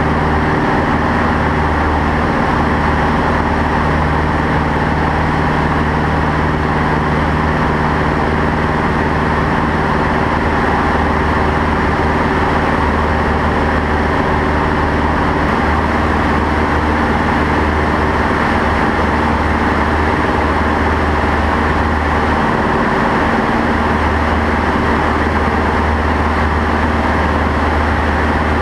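Single-engine light aircraft's engine and propeller running steadily, heard from inside the cockpit with wind noise over the canopy. One of the low hum tones fades out about halfway through.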